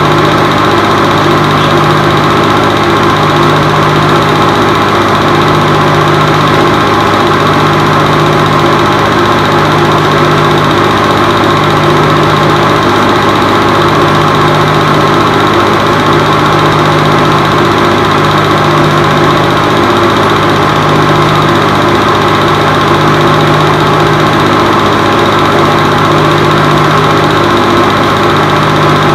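Home-movie film projector running: a steady mechanical whir with a low hum that pulses about every two seconds.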